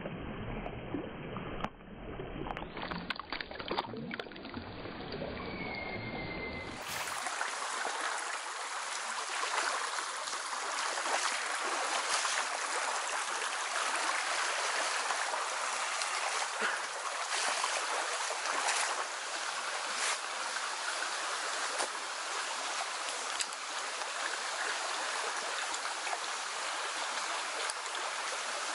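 Shallow forest stream running over a riffle, a steady rush of water. In the first few seconds there are a few splashes and knocks in the water as a brown trout is held in the stream.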